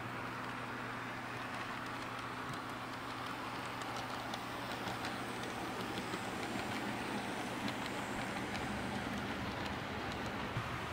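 HO-scale model train rolling past: model diesel locomotives and freight cars on the track, a steady motor hum under a rattle of wheels with light ticking over the rails. The rattle grows louder about halfway through as the cars pass close.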